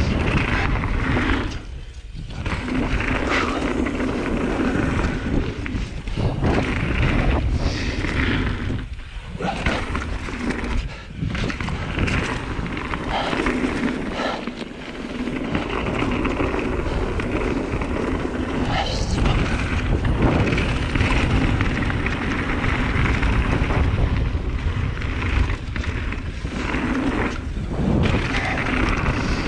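Mountain bike descending a dirt trail: wind rushing over the microphone and tyre noise, steady and loud, broken by brief dips and knocks over bumps.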